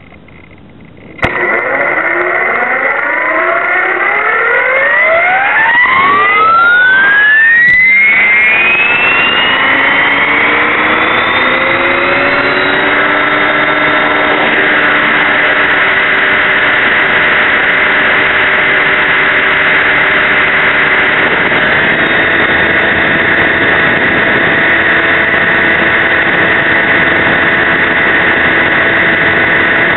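Align T-Rex 550E electric RC helicopter's brushless motor, gears and rotor heard from a camera mounted on the helicopter: a click about a second in, then a whine that rises steeply in pitch as the rotor spools up for about ten seconds. It then holds a steady whine at flying head speed.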